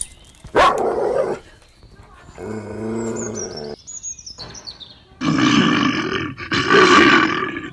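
Animal calls: a short loud call and then a pitched whining call in the first half, followed by a bear roaring and growling in two long loud bursts.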